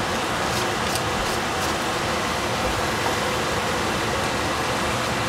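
Celery and cabbage sizzling steadily in a hot saucepan over a gas flame. In the first two seconds, light shakes of a seasoning container tick about three times a second.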